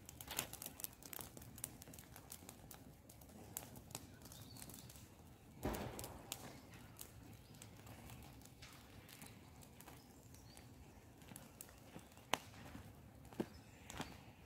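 Campfire crackling, with scattered sharp pops and cracks, and a short louder rustle about six seconds in. Footsteps on dry ground near the end.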